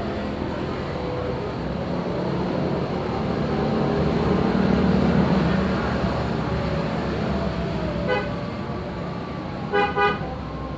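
Steady traffic rumble that swells about halfway through, then a short horn toot followed near the end by two more quick toots.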